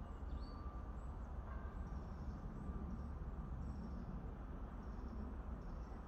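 Faint, short, high bird chirps repeating every half second or so, over a steady low rumble of wind or distant traffic.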